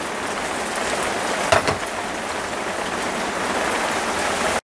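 Myford ML7 lathe running: a steady, even mechanical rush of noise, with a single click about one and a half seconds in.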